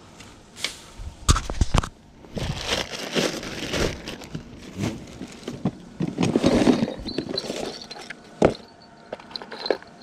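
A plastic tackle box being handled and opened, with sharp clicks and knocks and stretches of rustling in dry grass.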